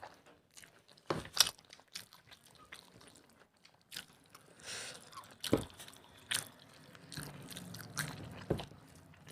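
Close-up eating sounds of mutton curry and rice: scattered wet chewing clicks and crunches, a loud pair about a second in and a few more later.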